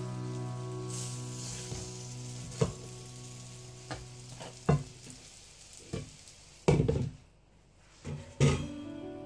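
Toast rolls frying in oil in a pan, sizzling, with several short knocks of a brush and spatula against the pan. About two-thirds of the way through, a louder clatter as the glass lid goes on, after which the sizzle is muffled.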